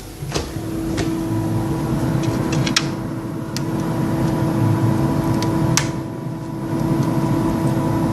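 Refrigerator-freezer humming steadily, its hum starting with a click about half a second in, with a few sharp clicks and knocks of handling over it.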